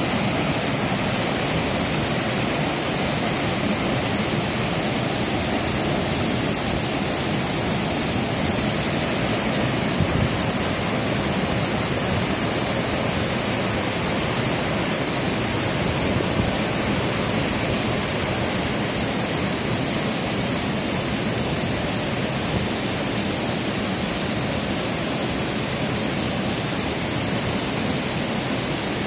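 Waterfall pouring over a stone weir into a pool: a steady, unbroken rush of water, bright and hissy, with no change in level.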